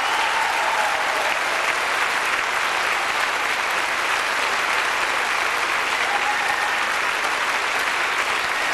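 Audience applauding steadily in a concert hall at the end of a choir's song.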